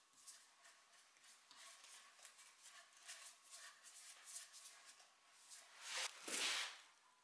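Paintbrush bristles stroking varnish onto a wooden rocking horse, faint short swishes about three a second. A louder rustling swish comes about six seconds in.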